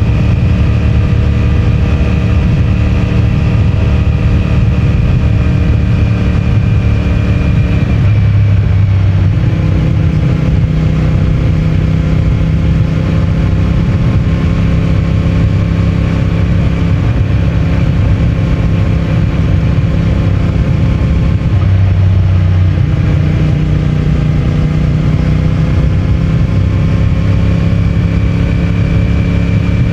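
CFMOTO 450MT's parallel-twin engine and stock exhaust running steadily under way. The engine note breaks and settles at a new pitch about 8 seconds in and again about 22 seconds in.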